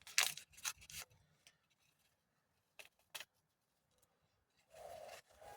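Paper seed packet being opened and handled: a cluster of sharp crinkles and snips in the first second, two more clicks about three seconds in, and a short rustle near the end.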